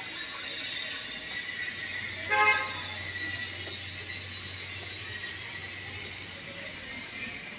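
A single short horn toot, pitched and lasting under half a second, sounds about two seconds in over a steady background hiss.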